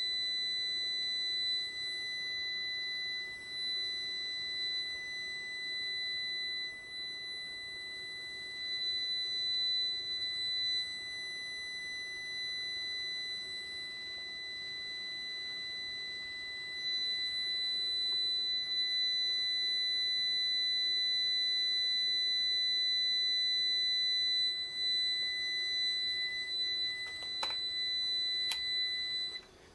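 A continuous high-pitched electronic buzzer tone, one steady pitch, that cuts off suddenly near the end. A couple of sharp clicks come just before it stops.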